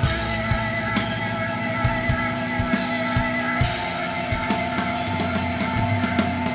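Doom metal band playing: distorted guitars holding sustained chords over a drum kit, with drum hits about twice a second and cymbal crashes.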